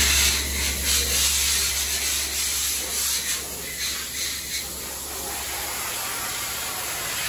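Sandblaster blasting abrasive at a sheet-metal part from a portable pressure blast pot: a steady, really loud hiss of air and grit, with a low hum underneath.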